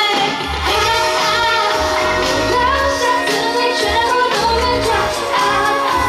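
Female pop singer singing into a handheld microphone over an amplified pop backing track, her voice gliding between notes; a steady bass beat comes in about half a second in.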